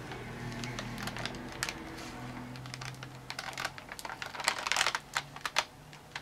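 Plastic Oreo cookie package crinkling and crackling as it is handled close to the microphone, with scattered crackles and a dense, louder flurry about four to five seconds in.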